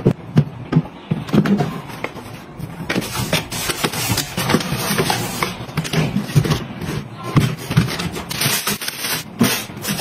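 Handling noise from plastic refrigerator drawers and storage bins as produce is put away: a run of irregular small knocks, clicks and scrapes.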